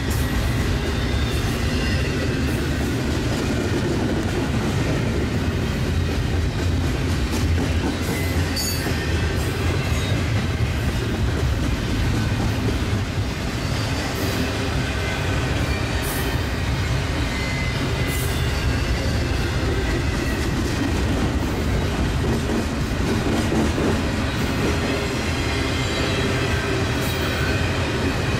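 Union Pacific double-stack freight train rolling past, its cars making a steady rumble with occasional clicks and faint high squeals.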